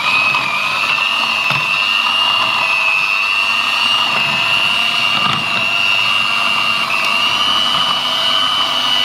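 Electric hand mixer running steadily, its beaters whipping cream in a bowl: a constant high motor whine, rising slightly in pitch about seven seconds in.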